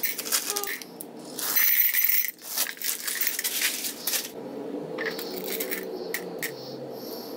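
Small hard round candies dropped by hand into a glass tumbler, rattling and clinking against the glass. It comes in several clattering bursts, loudest about two seconds in, then thins to a few light clicks.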